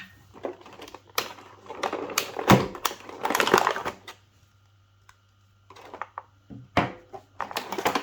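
Paper and cardboard packaging handled while a box is unpacked: rustling with sharp clicks and knocks, loudest in the first half, then a short pause and a few more knocks near the end.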